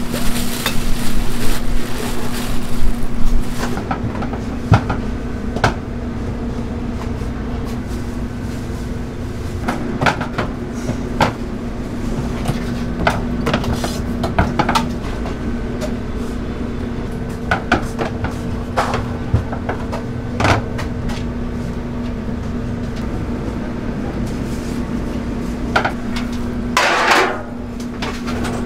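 Food-prep handling sounds: scattered clinks and knocks of a utensil and hands against a steel pot, with a busier rustling stretch in the first few seconds, over a steady low hum.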